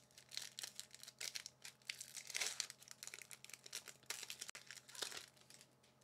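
Foil wrapper of a Magic: The Gathering Jumpstart booster pack crinkling and tearing as it is opened by hand: a run of short, irregular crackles.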